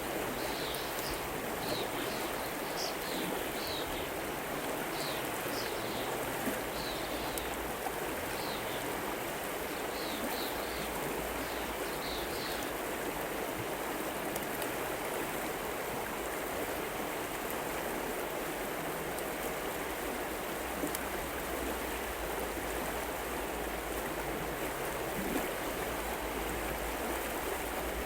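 A river running steadily, with the even rush of flowing water. Over the first half a small bird calls in a run of short, high chirps, and the chirps then stop.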